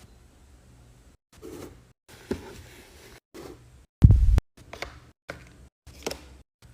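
Short handling sounds of food containers and packages being set down, slid and clicked into place in a refrigerator, cut together in quick snippets, with one heavy low thud about four seconds in.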